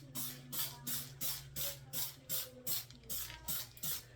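Sink being scrubbed in quick, even back-and-forth strokes, about three a second, which stop near the end.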